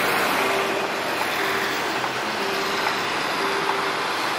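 Low-floor tram running into a street stop on its tracks, a steady rolling rumble, with a low beep repeating about once a second.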